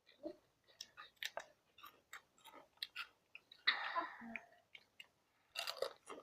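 People chewing hot chips, many quick crisp crunches in close succession, with a longer breathy noise about four seconds in and another near the end.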